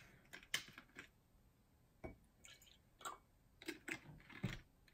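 Faint clicks of a plastic drink bottle's screw cap being twisted, with a short pour of the milky drink into a glass.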